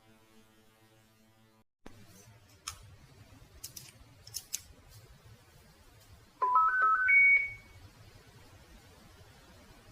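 Electronic startup jingle of a Samsung CW-21Z503N television: four short beeps, each higher than the last, about six and a half seconds in. Before it, a faint held tone cuts off suddenly, followed by a few faint clicks.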